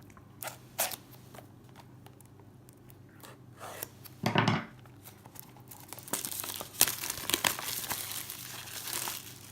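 Headphone packaging being opened by hand: a few clicks, then from about six seconds in a stretch of crinkling and tearing with sharp snaps as the box and its wrapping come apart.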